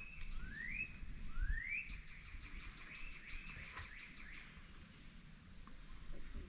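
Wild bird calling: two rising slurred whistles, then a rapid series of short, very high notes at about six a second, over a held high tone. A few low thumps sound underneath.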